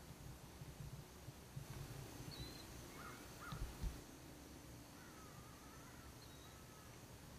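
Quiet outdoor ambience: a few faint bird chirps and short wavering calls, over a faint steady high-pitched drone. A couple of low thumps come a little past halfway.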